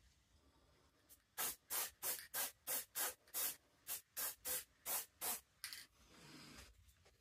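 Aerosol spray-paint can giving a quick run of short, even puffs, about three a second, then one softer, longer hiss near the end. This is light coats of paint being misted on.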